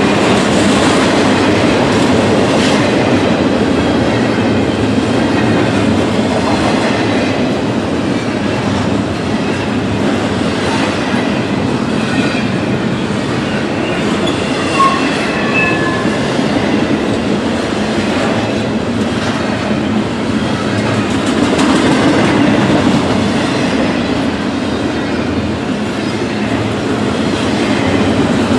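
A long freight train's cars rolling past, a steady rumble with wheels clicking over the rail joints. Faint wheel squeal comes in briefly around the middle.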